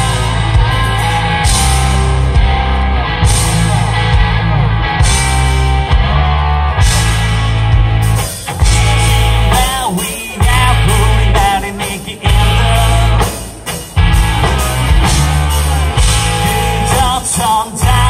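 Live rock band playing on stage: electric guitars and drums with a heavy, steady low end. A singer comes in about halfway through.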